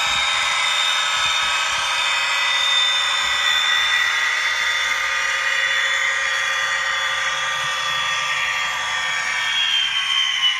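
Bachmann Class 57 model diesel locomotive's sound decoder playing a diesel engine running sound through its tiny onboard speaker as the model moves along the track: a steady, thin engine drone with a high whine and no deep bass.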